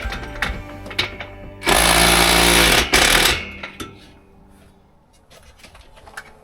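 Guitar background music, then about two seconds in a power tool such as a cordless drill or impact driver runs in one loud burst of roughly a second and a half, driving a fastener tight. Light clicks and knocks of handling follow.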